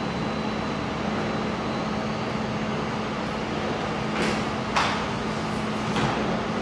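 Mold laser welding machine running with a steady fan-like hum, with three short clicks about four, five and six seconds in.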